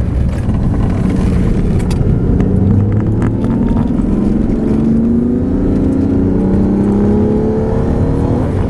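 Aston Martin DBS's 5.9-litre V12 heard from inside the cabin, accelerating hard out of a corner with its note rising steadily, then dropping about eight and a half seconds in as it changes up a gear.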